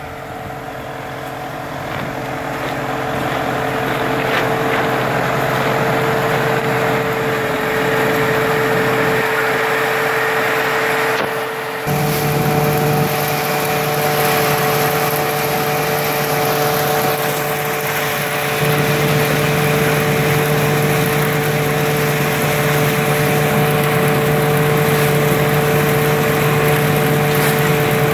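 Engine-driven thresher running steadily with a constant hum while dried Job's tears plants are fed into it by hand. About twelve seconds in the sound changes suddenly and a lower hum joins.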